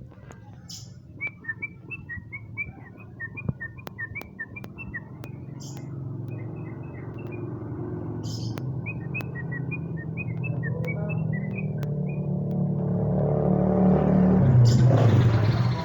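Yellow-vented bulbul calling in quick runs of short chirping notes, two runs with a brief break between them. A low engine hum builds steadily under the calls and becomes the loudest sound near the end.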